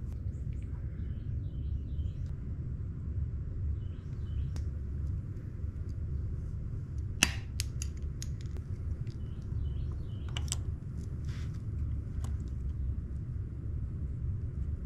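Steady low rumble with faint scattered bird chirps. About seven seconds in comes a sharp snap of a hand PEX cutter closing through PEX pipe, followed by a few lighter clicks of tool and fitting handling.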